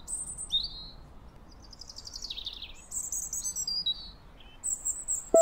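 Songbirds chirping and singing in a forest: a run of varied high whistled calls and quick descending trills, one after another, over a faint steady background hiss.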